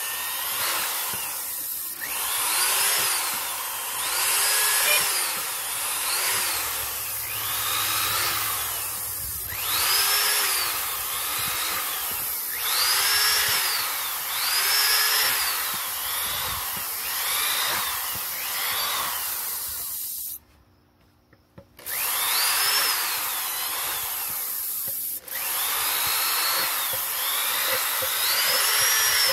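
Corded electric drill boring holes in a plastic jug, run in short trigger bursts in which the motor's pitch rises and falls with each squeeze. It stops for a moment about two-thirds of the way through, then starts again.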